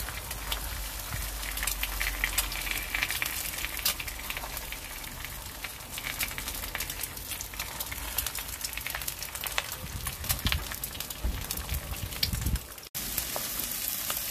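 Eggs frying in a cast-iron pan, sizzling with a steady crackle of small pops. The sizzle drops out for an instant near the end and then carries on.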